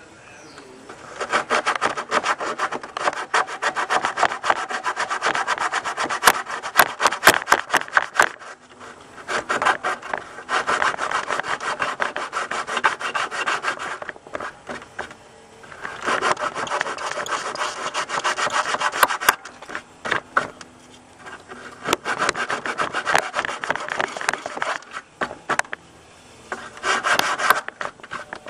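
Coarse 40-grit sandpaper rubbed back and forth by hand over cured fiberglass cloth, roughing it up. It comes in about five spells of rapid scratchy strokes with short pauses between them.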